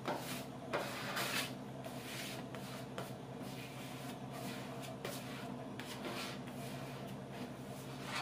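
A plastic bench scraper scraping and rubbing across a stainless steel worktop as dough is pushed and turned into a tight ball, in a string of short strokes, the loudest in the first second and a half. A steady low hum runs underneath.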